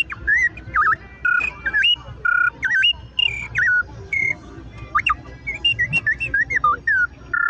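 Handmade bird-call whistle blown to imitate the song of the cenzontle (mockingbird): a quick, loud string of varied whistled notes, with short rising and falling glides and brief trills.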